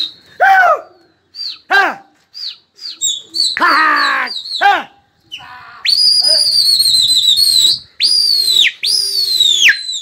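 A person whistling and calling to a flock of pigeons in flight: short, sharp rising-and-falling calls in the first half, then three long, loud whistles, each dropping in pitch at its end.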